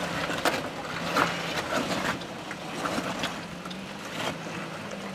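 Pickup truck engine running low and steady while crawling over lava rock, with irregular sharp cracks and scrapes of rock under the tyres and body.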